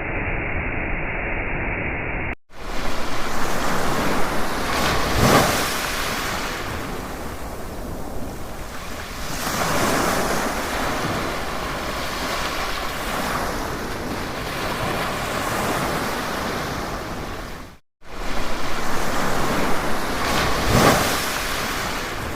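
Rushing water: a dense, steady wash of noise that swells every few seconds. It cuts off abruptly twice between clips.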